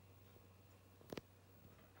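Near silence with a faint steady low hum, broken by one short, sharp click about a second in.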